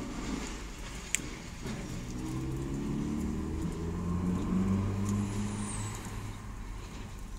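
A motor vehicle engine passing by, its low note stepping up and down as it goes and loudest around four to five seconds in. There is a single sharp click about a second in.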